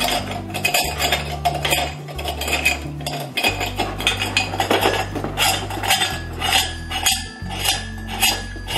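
Metal parts of a manual meat grinder clinking and knocking as a metal sausage-stuffer tube is handled and fitted into the grinder body, many short clinks, over background music with a steady bass line.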